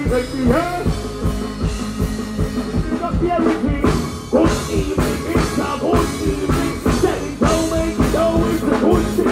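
Live dancehall performance: a singer's voice through a microphone over a backing track with a steady drum beat, played over a stage sound system.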